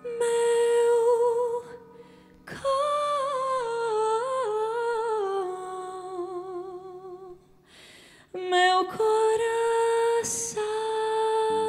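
Female jazz vocalist singing a wordless vocal line with vibrato to close a ballad: a held note, a slowly falling phrase, a short upward slide, then another long held note, over sparse band accompaniment.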